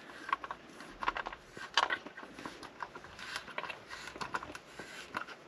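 Hard plastic dash trim and a phone-mount bracket being handled and fitted by hand: a scattering of light clicks, taps and small knocks.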